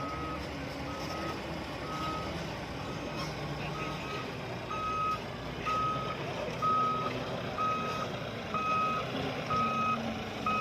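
Dump truck's reversing alarm beeping steadily, about one beep every 0.7 s, growing louder about halfway through, over the low running of its diesel engine.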